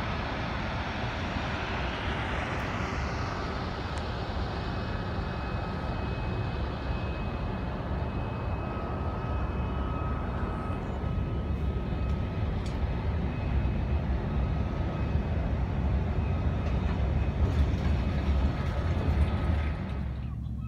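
Oceanex container ship's engines and machinery running as it comes in close past the wharf: a steady low rumble with a faint high whine, growing a little louder over the second half.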